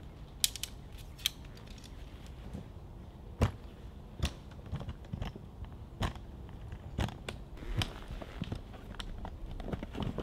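Canvas swag tent's tension poles being unclipped and taken down: irregular clicks, knocks and creaks of the poles and fittings, some close together, with the canvas sagging near the end.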